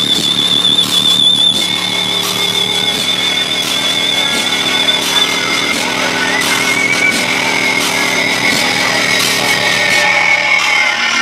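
Car subwoofers, one SSA 15-inch and two SoundQubed 15-inch drivers in plywood boxes, playing loud, buzzy bass, with a high wavering whine over it that drops to a lower pitch about halfway through.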